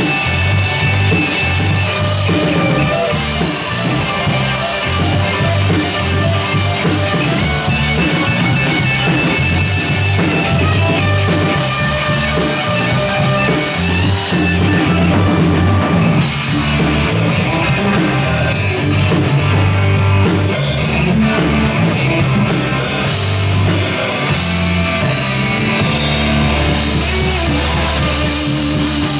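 Live rock band playing, the drum kit prominent over the rest of the band.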